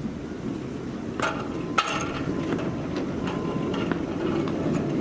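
Narrow-gauge locomotive turntable being pushed round by hand with a steam locomotive on it: a steady low rumble as it turns, with two sharp metallic clanks about a second and two seconds in and a few lighter ticks after.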